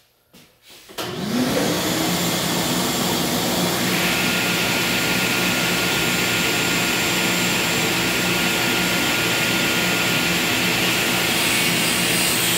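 Table saw switched on about a second in: the motor spins up with a rising whine, then runs steadily. Near the end the blade begins cutting a wooden dowel set at a steep angle on the miter gauge.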